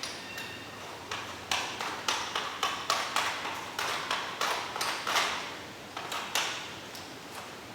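Light metallic clicks and taps, one or two a second, from a 10 mm drill bit being changed in an electric drill's chuck.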